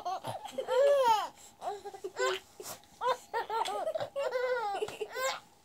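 A baby making a string of short, high-pitched vocal sounds, squeals that glide up and down in pitch, between laughing and fussing.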